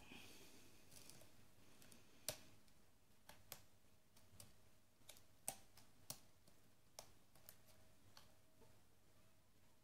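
Faint, irregular small metallic clicks of a lock pick raking and lifting the pins of an ASEC pin-tumbler lock, a dozen or so spread out over several seconds, the loudest a little over two seconds in and halfway through.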